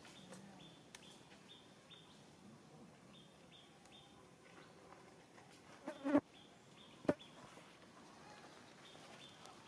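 Faint outdoor ambience with an insect chirping in a series of short, high, evenly spaced notes. About six seconds in comes a brief louder call, and a sharp click follows about a second later.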